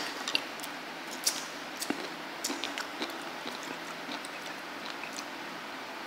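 Light clicks and taps of eating at a table, with chewing and small knocks of dishes, scattered through the first three seconds and then fainter, over low room noise.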